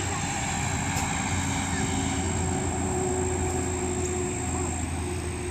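Steady drone of a distant engine, a low hum with a few held tones above it.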